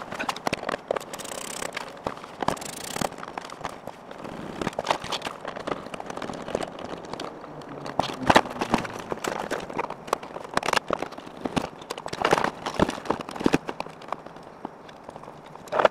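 Plastic door card being worked loose and pulled off a Lexus SC's door: a string of irregular clicks, snaps and knocks as the trim panel and its clips come free and the plastic is handled.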